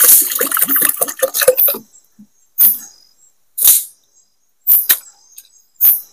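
Rice being washed by hand in a metal cooking pot. For about two seconds the grains rattle and scrape as they are stirred, then water in the pot is swished four times, about a second apart. Insects chirp faintly and steadily.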